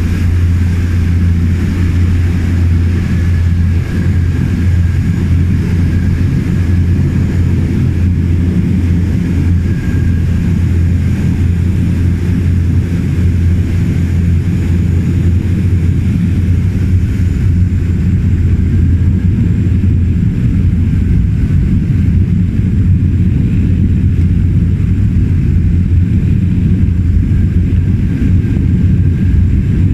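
Steady cabin drone of a de Havilland Canada Twin Otter's twin PT6A turboprop engines and propellers in flight: a heavy low hum with a thin high whine above it.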